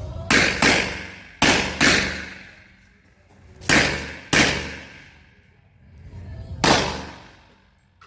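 Rock Island Armory Tac Ultra FS HC pistol firing seven shots, mostly in quick pairs, each shot ringing off with an echo that dies away over about a second.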